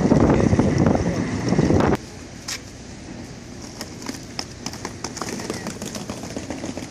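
Loud outdoor rumble with clatter, typical of a ferry loading ramp with wind on the microphone, cutting off suddenly about two seconds in. After it comes a much quieter open-air background with faint voices and a few light clicks.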